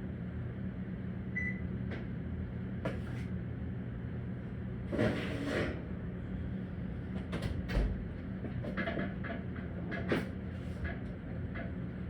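Kitchen handling sounds over a steady low appliance hum: several sharp knocks and clicks, and a short scraping rustle about five seconds in, like cupboards, dishes and utensils being moved.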